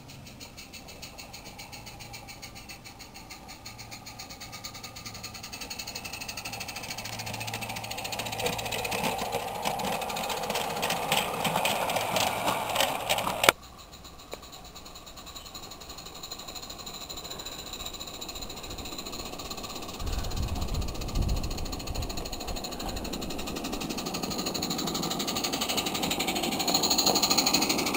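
Roundhouse Elsa live-steam locomotive exhausting through a Summerlands chuffer: a fast, even chuff-chuff that grows louder as the engine draws near, cuts off abruptly about halfway, then builds again. A short low rumble comes about two-thirds of the way through.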